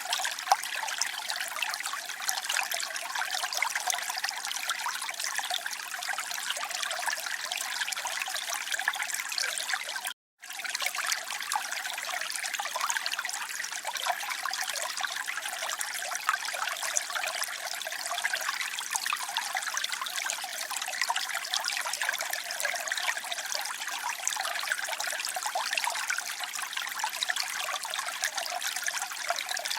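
Water trickling and splashing steadily, a bright, busy babble with no low rumble. It is cut by a split-second gap of silence about ten seconds in.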